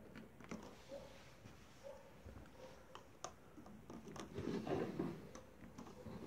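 Faint handling sounds from a small homemade syringe air engine: light clicks as its copper valve parts are fiddled with, then a louder stretch of rubbing and knocking about four seconds in as the wooden baseboard is turned around on a wooden table.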